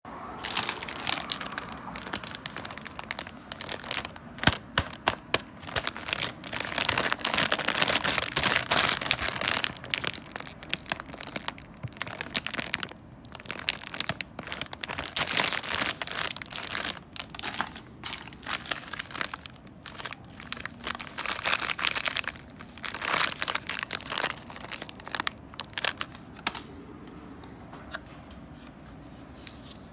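Plastic food packaging crinkling and rustling as it is handled, in irregular bursts with sharp crackles. It dies down a few seconds before the end.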